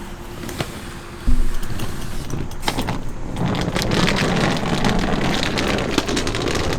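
A sudden thump about a second in, then a car running steadily with small clicks and rattles over it.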